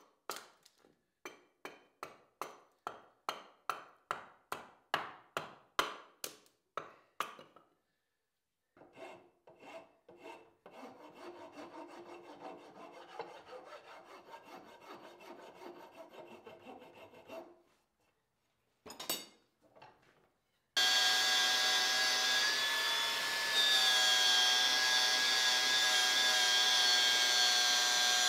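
A hatchet chopping a wooden axe handle, about two strokes a second for some seven seconds, followed by a file scraping along the handle. About 21 seconds in, a HiKOKI angle grinder with a flap disc starts and runs steadily with a high whine, grinding the forged axe head; it is the loudest sound.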